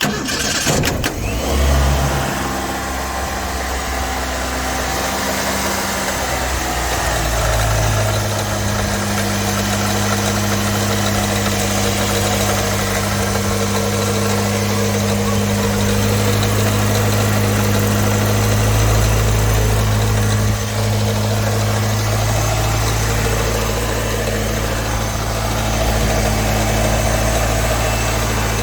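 Ford 2.3L four-cylinder engine cranked by a newly fitted starter, catching within a second or two and running. It runs a little faster at first, then settles to a steady idle about seven seconds in. The new starter cranking it shows the no-crank fault was a bad starter.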